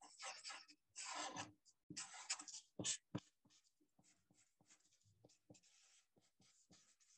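Black felt-tip marker scratching on paper: a few longer strokes in the first couple of seconds, two sharp taps about three seconds in, then many short, faint quick strokes.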